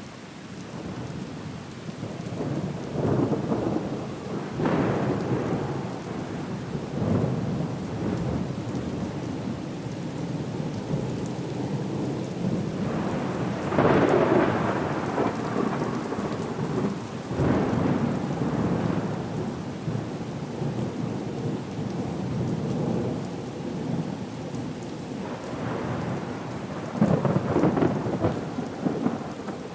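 Rainstorm ambience: steady rain with rolling thunder that swells up several times, most strongly about halfway through and again near the end.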